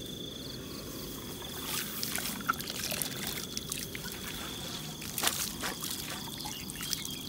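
Water pouring and trickling out of an eel trap tube onto wet grass, with a few light knocks. A steady high insect buzz runs behind it.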